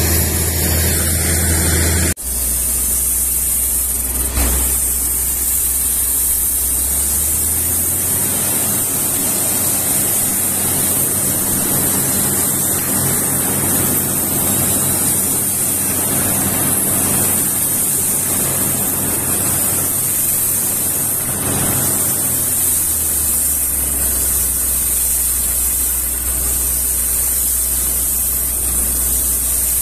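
Truck-mounted well-drilling rig drilling into rock with a down-the-hole air hammer: a steady rush of compressed air blowing muddy water and cuttings out of the borehole, over the hum of the rig's engine. For a stretch in the middle the engine hum runs at a higher pitch.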